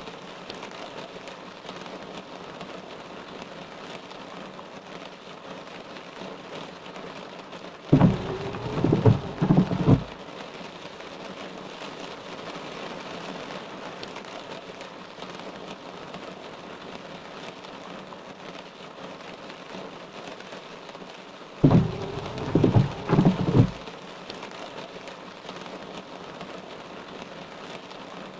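Car windshield wipers sweeping over wet glass in steady rain. Twice, about 8 seconds in and again near 22 seconds, the wiper motor whirs and the blades make a couple of quick passes lasting about two seconds, then stop while the rain runs on.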